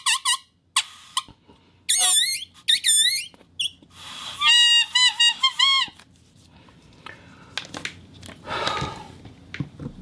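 Rubber whistle sounded in a series of short warbling squeaks, the pitch wobbling up and down, through the first six seconds. After that come a few faint clicks and one weaker, hoarser squeak near the end.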